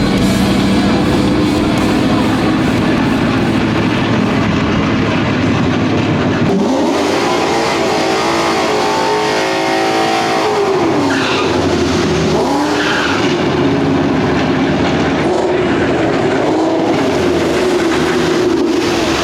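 Ford Mustang's Coyote 5.0 V8 running hard on a drag pass: the engine holds steady revs, then about seven seconds in the pitch climbs sharply, drops about three and a half seconds later at a manual gear change, and climbs again.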